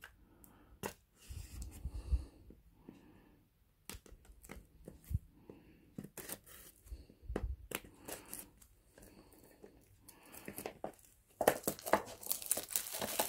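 Kitchen knife slitting and scraping the plastic wrapping on an AirPods box, with scattered small clicks and rustles, then louder crinkling and tearing of the plastic film in the last couple of seconds.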